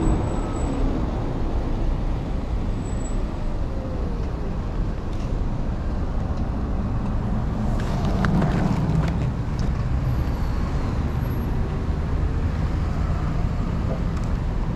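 Steady wind and road noise from riding a Talaria Sting R MX4 electric dirt bike in city traffic: a low, even rushing, with a louder swell and a few clicks about eight seconds in.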